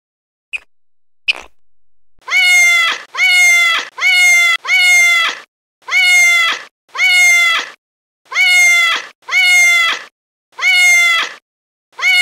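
A domestic cat meowing over and over: about ten similar meows, one after another, each under a second long with short gaps between them. Two short clicks come just before the meows begin.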